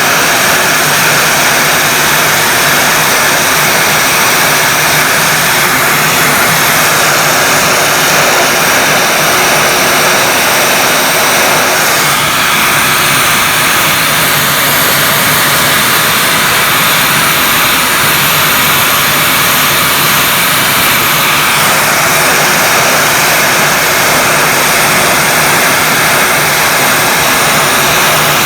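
Heat gun running steadily with a loud rush of hot air, held close to faded black plastic trim to restore its color. Its tone shifts about twelve seconds in and shifts back about ten seconds later.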